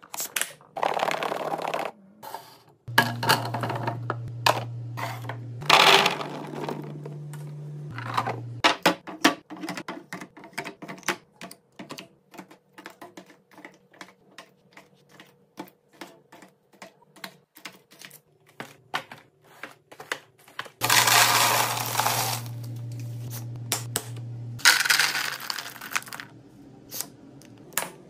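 Hard dry snacks clattering and rattling into clear plastic storage containers, in several rushing pours with scattered clicks of single pieces between them. Near the end pretzel sticks pour into a clear plastic canister in a dense rattle lasting a few seconds.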